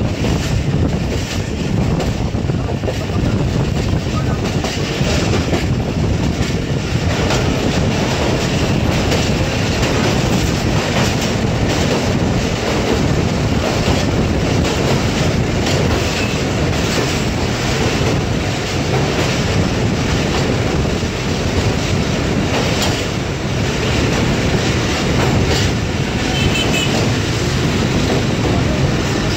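A Pakistan Railways passenger coach running at speed, heard from the rear of the train: a loud, steady rumble with the clatter of wheels over rail joints.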